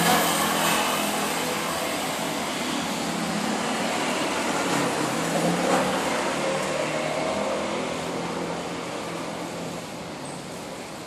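Motor scooters passing on a city street, one at the start and another about six seconds in, over steady traffic noise that eases off near the end.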